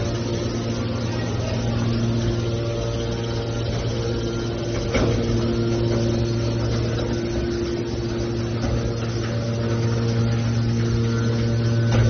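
Hydraulic scrap metal baler's power unit running with a steady hum, with a single clank about five seconds in.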